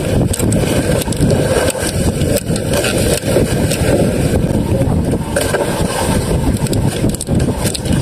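Motorized outrigger boat's engine running steadily, mixed with strong wind buffeting the microphone and waves splashing against the hull.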